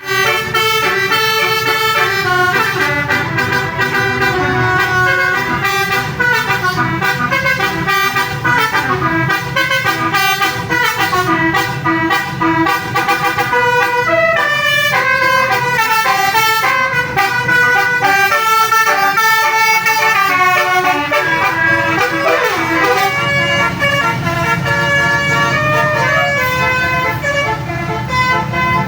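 Multi-tone "telolet" bus horn playing a melody, several horn notes sounding together and stepping quickly from note to note without a break, over a steady low rumble.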